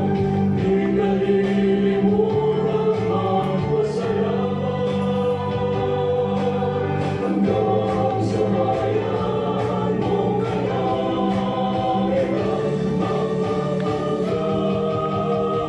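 Choral music with a steady beat, voices singing sustained lines over a bass accompaniment.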